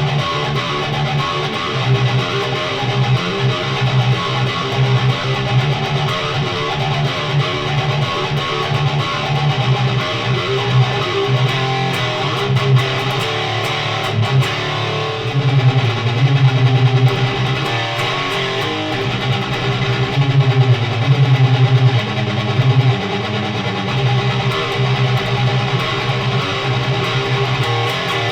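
Distorted electric guitar through a Noise Pollution Plush Box overdrive pedal into a high-gain Randall amplifier, playing a heavy metal riff with big chords. The playing is continuous, with louder surges partway through.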